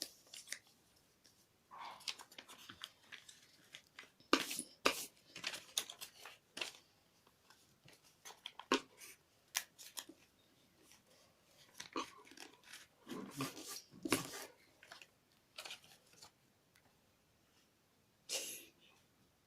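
A sheet of paper being folded and creased by hand: an irregular series of short, sharp crinkles and crease sounds with pauses between.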